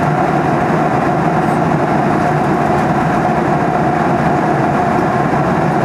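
Steady cruise-flight cabin noise heard from a window seat of a Boeing 737 Next Generation: the constant rush of air and drone of the CFM56 turbofan, with one steady hum held throughout.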